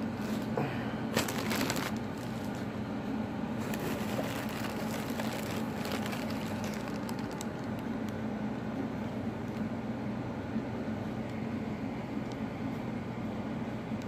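Plastic packaging crinkling and rustling as it is handled, in bursts about a second in and again from about four to seven seconds, over a steady low hum.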